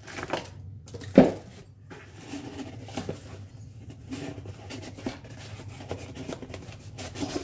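Hands handling a cardboard box and plastic-bagged LED light pods: a single loud thump about a second in, then light rustling, scraping and small clicks of cardboard and plastic.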